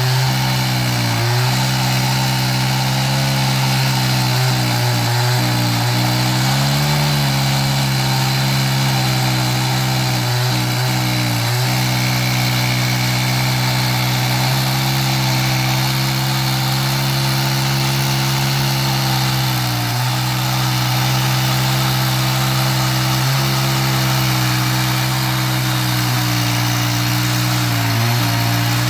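Two-stroke chainsaw on an Alaskan chainsaw mill running at steady high revs under load as the bar cuts through a walnut log. Its pitch sags briefly a few times as the load changes.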